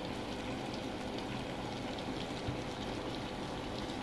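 Crab in coconut milk simmering in an aluminium pot: a steady bubbling hiss with faint scattered pops as the sauce cooks down.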